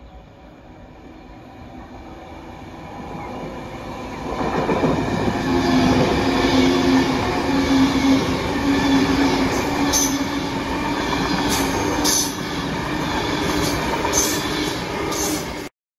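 Avanti West Coast express passenger train approaching and running through the station at speed. The sound grows steadily louder over about four seconds, then the train passes close by with a loud rush of wheel and rail noise, a steady low hum, and several sharp clicks of wheels over rail joints. It cuts off suddenly near the end.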